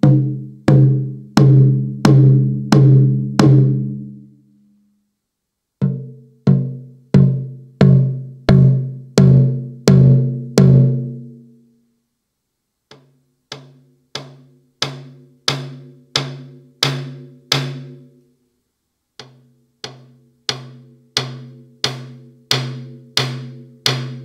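Roland TAIKO-1 electronic taiko playing its Katsugi-1 sound bank, a sampled katsugi okedo drum, struck in four runs of evenly spaced strokes about one every 0.7 seconds. Each stroke is a low drum note with a sharp attack that rings briefly. The last two runs start soft and build up in loudness.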